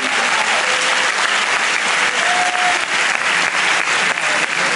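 A crowd of students applauding, many hands clapping steadily.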